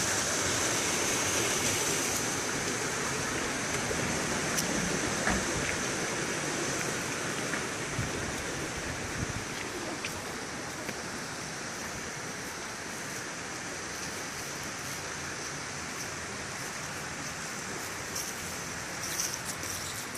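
Steady rushing noise with a thin high hiss on top, and a few faint clicks near the end.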